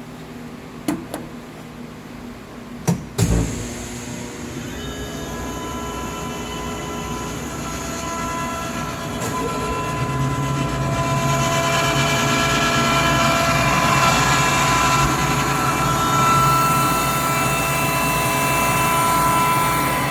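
A few sharp clicks and knocks, then the Kaeser AS25 25-horsepower rotary screw air compressor starts up and runs with a steady hum and several steady tones. It grows louder about ten seconds in and stays there.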